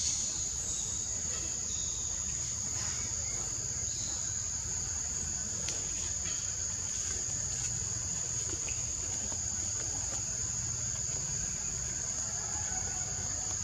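Steady high-pitched chorus of forest insects, one unbroken shrill tone that holds level throughout, over a faint low rumble.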